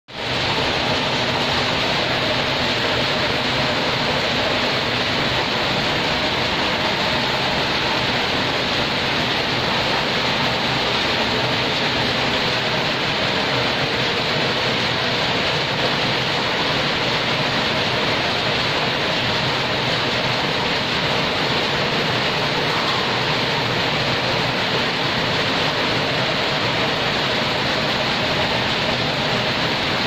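Many power looms running together in a weaving shed: a loud, steady, even din with no distinct beats standing out.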